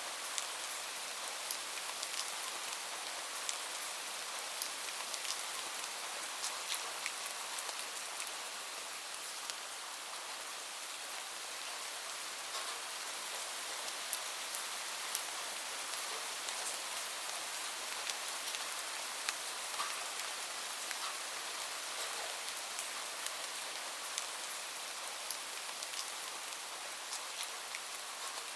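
Steady rain falling, an even hiss with many separate drops ticking sharply on a surface.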